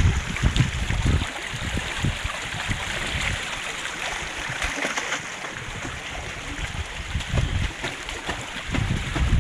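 Rain runoff running steadily through a flooded garden, a constant rushing of water. Wind buffets the microphone with low rumbling gusts at the start and again near the end.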